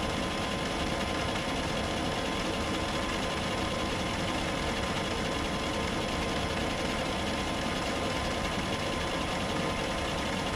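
Myford metalworking lathe running steadily under power feed with the half nut engaged, taking a light skim cut.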